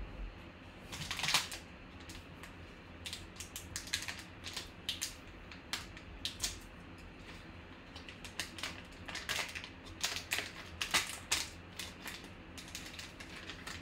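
Baseball card pack's wrapper being torn open and crinkled by hand: irregular crackles, the loudest about a second in.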